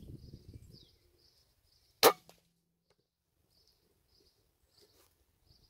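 A single shot from a Weihrauch HW100 V sub-12 ft-lb pre-charged pneumatic air rifle about two seconds in: one sharp crack with a short ring after it.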